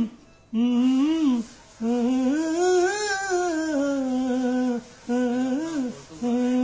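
A man humming a wordless melody, unaccompanied, in four phrases separated by short breaths. The pitch climbs to its highest note about three seconds in and slides back down, with small turns between the held notes.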